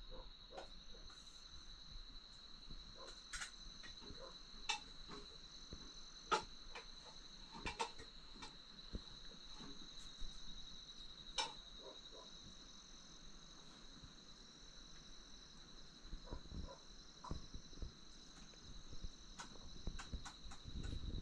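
Steady high-pitched insect trill, with scattered light clinks and taps.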